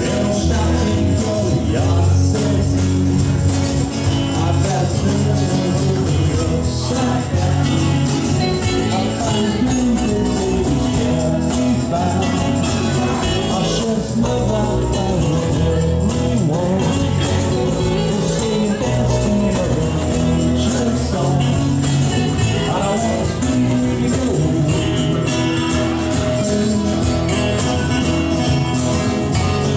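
Live acoustic country-style jam: strummed acoustic guitars over an electric bass line, with a harmonica played into a vocal microphone carrying the melody.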